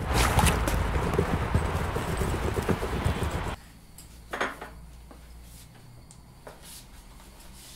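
Wheeled suitcase rattling and footsteps clattering over frozen pavement against street noise. This cuts off abruptly about three and a half seconds in, leaving a quiet room with a few light clicks and knocks as things are handled at a kitchen counter.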